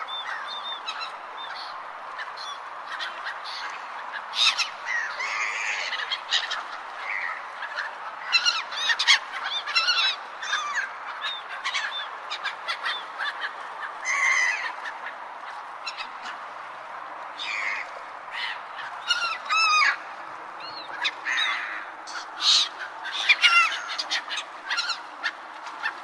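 Seagulls calling: many short calls, several overlapping at once, over a steady background hiss.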